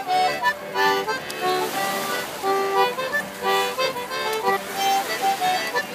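Accordion playing a dance tune: held chords and melody notes repeating in a steady rhythm.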